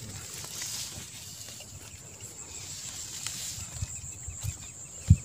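Outdoor ambience with a steady high-pitched insect buzz and a few faint clicks, ending with a short low thump.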